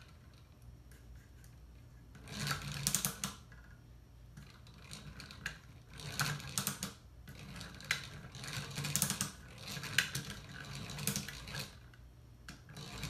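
Plywood gears and levers of a laser-cut wooden mechanical model clicking and rattling as the mechanism is worked back and forth by hand, in about four bursts of rapid clicks. The mechanism is being tested while it is still a little stiff.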